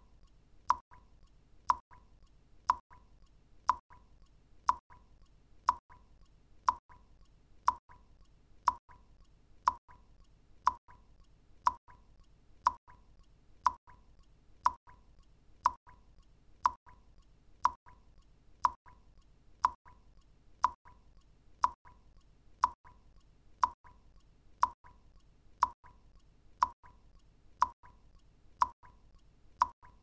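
Water drops falling into water one at a time at an even pace, about one a second. Each is a short plop with a brief ringing tone.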